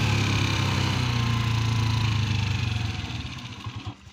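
Motorcycle engine running under wind rush while riding, its note falling slowly as the bike slows. It eases off about three seconds in and fades to a low hum near the end as the bike pulls over.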